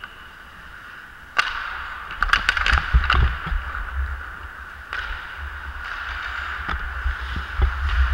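Ice hockey play after a faceoff: a sharp crack of stick on puck about a second and a half in, then a quick cluster of hockey sticks clacking on the puck and on each other, with skate blades scraping the ice throughout and a few scattered stick taps later.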